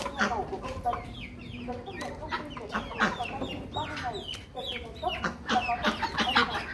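A flock of chickens clucking, with many short calls overlapping one another throughout.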